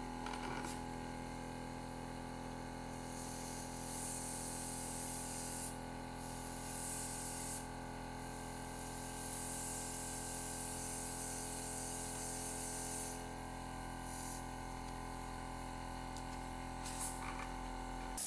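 Small airbrush compressor motor humming steadily while the airbrush sprays a fine mist in four hissing bursts, each starting and stopping as the trigger is worked, the longest lasting about five seconds.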